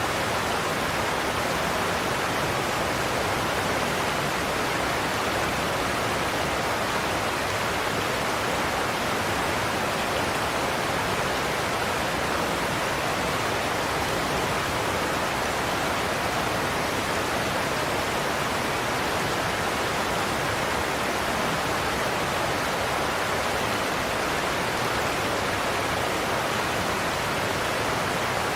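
Godafoss waterfall's water rushing over the falls in a steady, unbroken roar.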